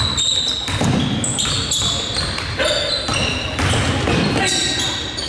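Basketball game play on a gym court: the ball bouncing, with many short, high squeaks of sneakers on the floor.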